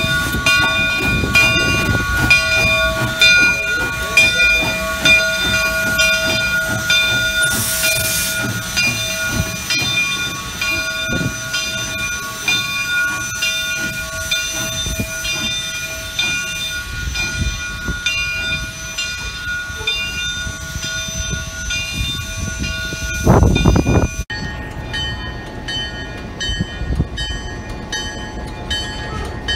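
Southern Railway No. 401, a 2-8-0 steam locomotive, running slowly past with steady ringing mechanical tones and a faint repeating beat, and a short burst of steam hiss about 8 seconds in. Near the end a brief loud rumble comes, and then the sound changes abruptly to a quieter background.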